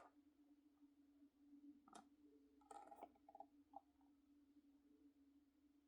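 Near silence: room tone with a faint steady hum and a few very faint small clicks around the middle.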